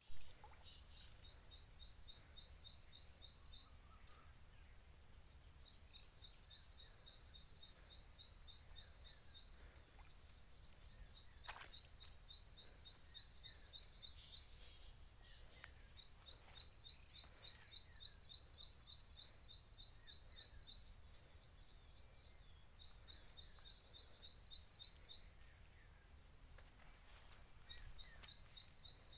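A high, rapid trilling call of about ten notes a second, repeated in bouts of two to four seconds with short gaps between, over a faint low rumble.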